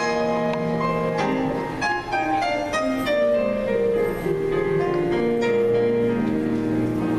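Keyboard music: held notes and chords that change about every second.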